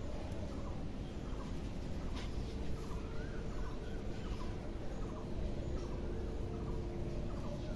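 Birds calling in short repeated chirps over a steady low hum.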